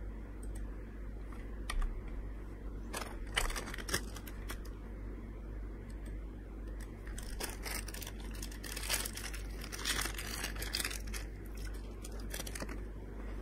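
Computer keyboard typing and rustling handling noise at a desk: scattered clicks and short bursts, busiest from about seven to twelve seconds in, over a steady low hum.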